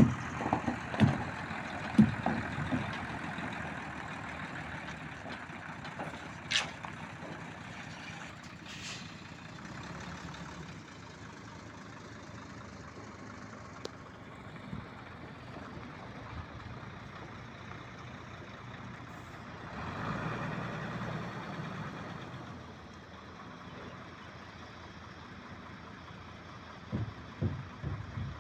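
Heavy diesel construction machinery running steadily, with a few sharp knocks near the start and again near the end, and a swell in engine noise about twenty seconds in.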